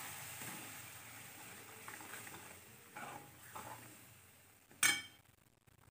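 Masala sizzling in a pan as thick mashed boiled vegetables are poured in, the sizzle dying down, with a ladle scraping through it a few times. Near the end comes one sharp metallic clink.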